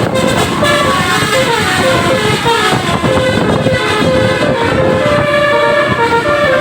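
Basuri 'telolet' multi-tone bus horns playing a tune of held notes that step up and down in pitch, sounding one after another over loud vehicle noise.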